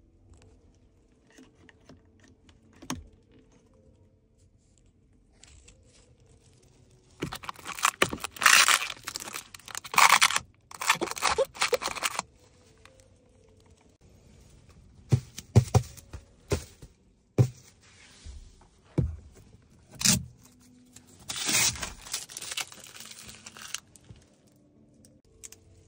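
Protective plastic film being peeled off a new Hyundai Tucson's interior trim: two long spells of tearing and crinkling plastic, with a few dull knocks between them.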